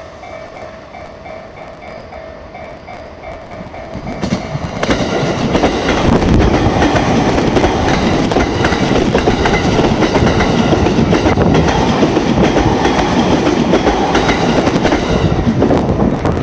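Japanese railway level-crossing warning bell ringing in a steady repeating pattern. About four to five seconds in, a train passes over the crossing: a loud rumble of wheels with clacking over the rail joints, lasting about eleven seconds and dropping away just before the end.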